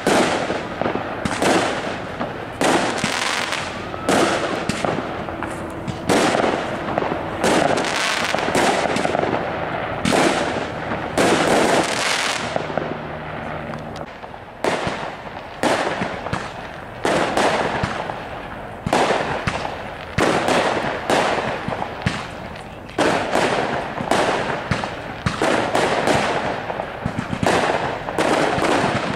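Aerial fireworks bursting in a rapid string of bangs, one every second or less, each dying away before the next. There is a brief lull about halfway through.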